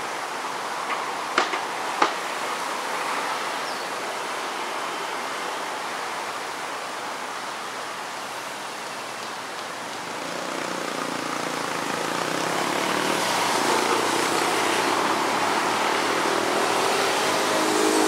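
Steady outdoor background hiss with two sharp clicks near the start; from about ten seconds in, road traffic swells louder, a vehicle passing near the end.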